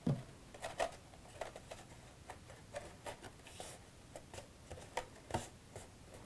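Faint handling of cardstock: scattered light taps, rubs and crinkles as a glued paper side panel is pressed and held into place, with a slightly louder knock just after the start.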